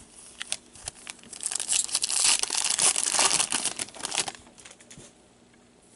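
Foil wrapper of a hockey card pack crinkling and tearing as gloved hands open it. It starts about a second in, is loudest in the middle and stops a little after four seconds.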